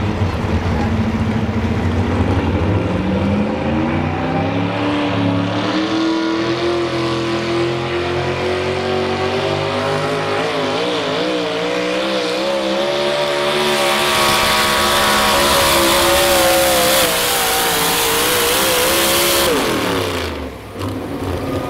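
Supercharged engine of a modified 4x4 pulling truck revving up under load as it pulls the sled: the pitch climbs over the first few seconds, then holds high and wavers. A loud hissing rush builds over it and stops abruptly near the end, and the engine pitch then falls away.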